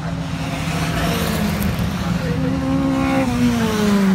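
Historic saloon race cars' engines running hard, several at once. One engine note climbs, then drops away about three seconds in.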